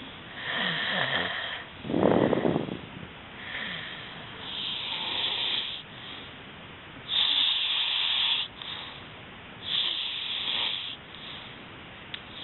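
Two sleepers snoring: a string of hissing, wheezy breaths every second or two, with one louder rattling snore about two seconds in.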